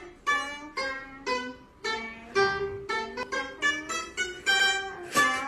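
Ruan, a round-bodied Chinese plucked lute, being played: a slow melody of single plucked notes, about two a second, each ringing and then fading.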